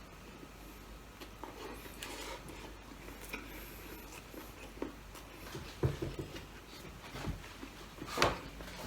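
Quiet eating sounds: a person chewing, with a few short soft clicks and taps, the loudest near the end.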